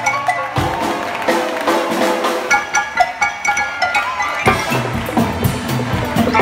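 Live pit band playing upbeat music, with piano and sharp percussive knocks keeping a steady rhythm. The low bass drops out shortly after the start and comes back about four and a half seconds in.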